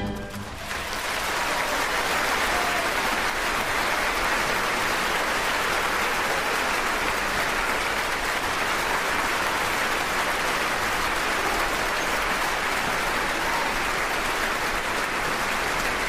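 Theatre audience applauding, the clapping swelling over the first second or two as the orchestra's last chord dies away, then holding steady.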